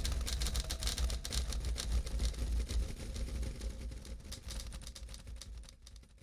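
A low rumble with many irregular clicks over it, fading out gradually to silence near the end.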